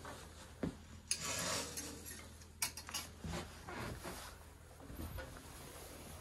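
Scattered light clinks and knocks of dishes and cutlery on a kitchen table, with a short scraping rub about a second in.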